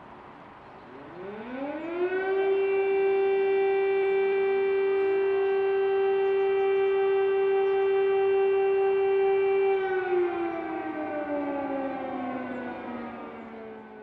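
Civil defence air raid siren winding up in pitch over about a second, holding one steady wailing tone for about seven seconds, then slowly winding down.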